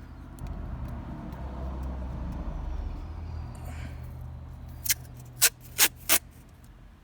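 Masking tape pulled and torn off the roll in four short, sharp rips near the end, after a low rumble like a passing vehicle fades over the first few seconds.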